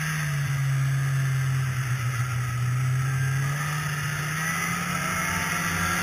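Two-stroke Polaris snowmobile engine running at a steady cruise while riding a trail, with a continuous hiss of wind and track noise; the engine pitch rises a little about three and a half seconds in.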